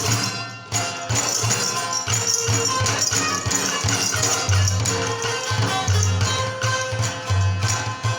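Chitrali sitar playing a Khowar folk tune in quick, repeated plucked strokes, with a steady low percussion beat underneath.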